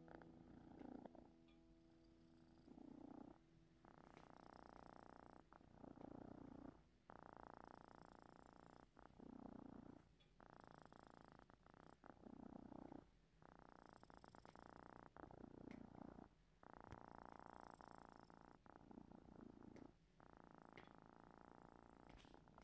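Domestic cat purring in a steady rhythm, each breath cycle alternating a brighter phase with a lower, deeper phase, the whole cycle repeating about every three seconds.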